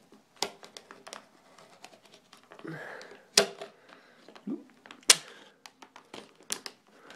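Small knife blade scoring and prying at stiff clear plastic blister packaging: soft scraping broken by sharp plastic clicks and snaps, the loudest about three and a half and five seconds in.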